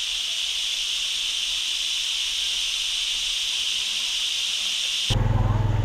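Steady high-pitched buzz of an insect chorus that cuts off abruptly about five seconds in, giving way to a low steady engine hum.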